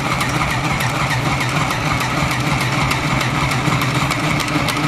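Small Singer kids' electric sewing machine running steadily, its needle stitching through cotton fabric with a fast, even clatter over the motor's hum.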